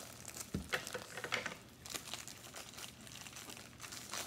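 Clear plastic wrap crinkling and rustling as it is handled and pulled off a rolled canvas, in irregular crackles, with a soft knock about half a second in.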